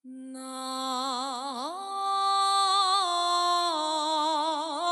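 A woman sings unaccompanied gueum, a wordless Korean vocalized melody in pansori style. She holds long notes with a wide vibrato, slides up to a higher note about one and a half seconds in, and steps down again later.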